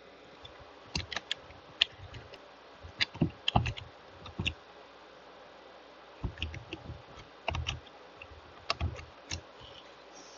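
Computer keyboard keys being typed in short, irregular runs of clicks with pauses between them.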